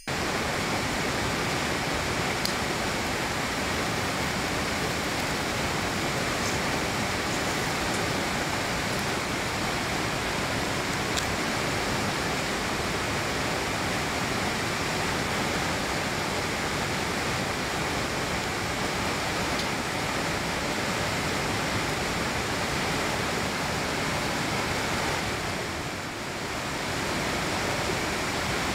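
Steady rushing of flowing river water, even and unbroken, dipping briefly near the end.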